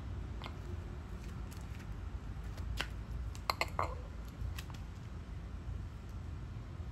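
Garden scissors snipping nasturtium and cornflower stems: a few sharp clicks scattered through, bunched together about three and a half seconds in, over a steady low rumble.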